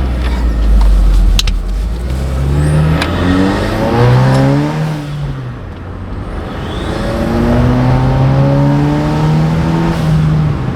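2008 Acura RDX's turbocharged four-cylinder with an ATLP cat-back exhaust, accelerating under load and heard from inside the cabin with the windows up. The revs climb, fall back at a shift about five seconds in, then climb again. A faint rising turbo whistle rides over it.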